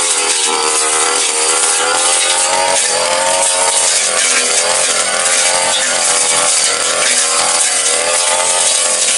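Backpack brush cutter's small petrol engine running at high revs as its blade cuts through grass and brush. The engine pitch wavers slightly up and down with the load.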